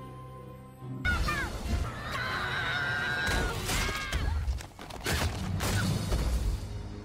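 Cartoon soundtrack: soft music, then from about a second in a loud burst of action sound effects, with high gliding shrieks and several crashing impacts over the music.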